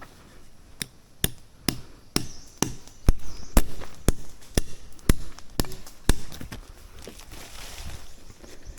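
Chopping: a steady run of sharp blows, about two a second and a dozen in all, that stops about six seconds in.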